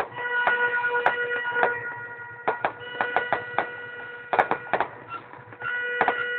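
Fireworks going off: a run of sharp, irregular bangs and crackles over a steady, held horn-like tone that fades about five seconds in and returns near the end.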